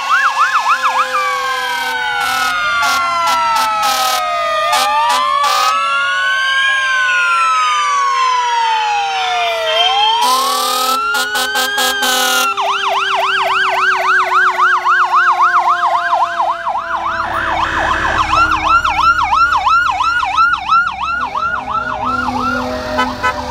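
Several police and fire-truck sirens sound at once: fast yelps and slow rising-and-falling wails overlap, over a long tone that slowly falls in pitch. Short horn blasts cut through, one about ten seconds in lasting a couple of seconds. A heavy engine rumble comes in during the last few seconds.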